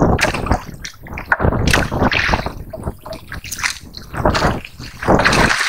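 Sea water sloshing and splashing around a small boat in irregular surges, with wind rumbling on the microphone.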